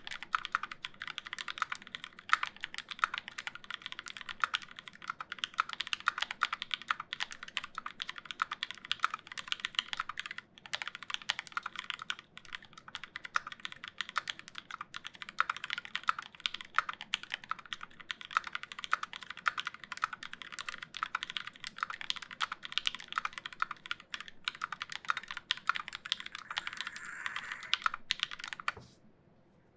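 Continuous fast typing on a Square.O mechanical keyboard with lubed linear switches (C3 Tangerine stems in Gateron Milky housings), GMK keycaps and a 4 mm aluminium plate: a dense stream of keystroke clacks that stops near the end.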